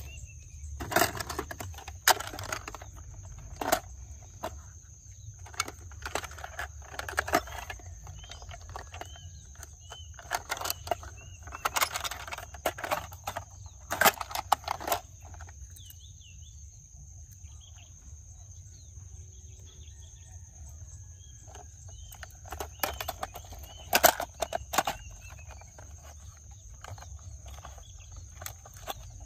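Irregular sharp clicks and knocks, typical of plastic toy cars being handled and set down, with faint bird chirps and a steady high whine behind them.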